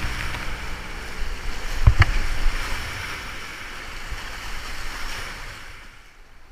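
Whitewater rapids rushing and splashing around a kayak, heard from on the boat, with two sharp knocks about two seconds in. The rushing fades away near the end.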